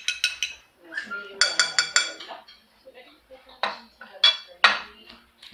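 Metal fork clinking and scraping against a white ceramic plate as the last of the pasta is scraped up, nearly empty. A few ringing clinks at the start, a quick run of clinks about a second and a half in, then several shorter scrapes.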